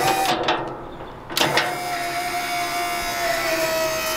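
The electric hydraulic pump of a Hyundai HYMD500B battery-powered mini dumper runs with a steady whine, its pitch easing slightly lower, as the tipping bucket is lowered. It starts about a second and a half in.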